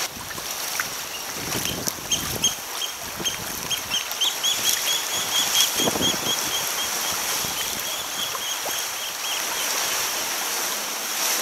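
A bird calling a long series of short, high piping notes, about four or five a second, that starts a second or two in and stops near the end, over the steady wash and slosh of sea water against rock.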